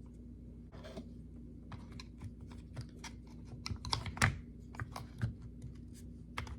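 Irregular small clicks and taps of plastic impact-driver housing parts being handled and pushed, as a loose button is worked in the case; the loudest clicks come about four seconds in.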